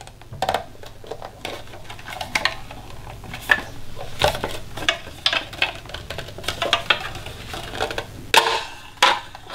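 Plastic clicks, taps and rubbing as the white casing of a Samsung SmartThings hub is handled and turned over in the hands, with two sharper clacks near the end.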